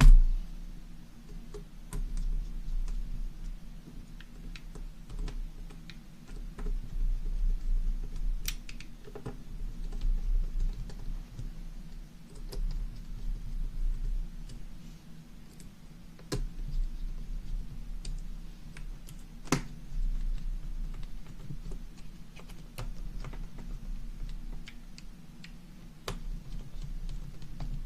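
Small screwdriver working the tiny screws of a laptop's screen assembly back in: scattered light clicks and ticks of the driver and screws, with occasional handling knocks on the plastic casing.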